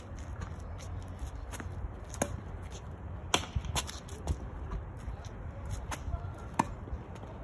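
Tennis balls popping off racket strings and bouncing on a hard court: a string of sharp, irregular pops. The loudest comes near the end, as the near player hits a forehand.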